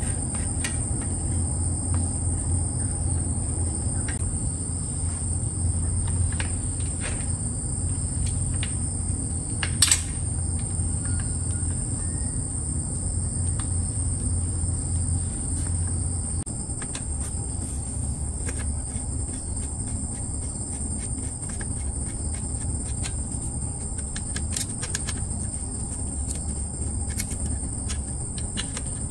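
A steady high-pitched chorus of insects, with scattered light clicks and knocks of metal bicycle parts being handled, the sharpest about ten seconds in. A low rumble lies underneath and eases a little about halfway through.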